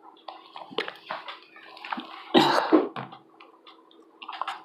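Rustling and knocking handling noises as a camera is moved and adjusted on its mount, irregular, with the loudest rustle about halfway through and a few light clicks near the end, over a faint steady hum.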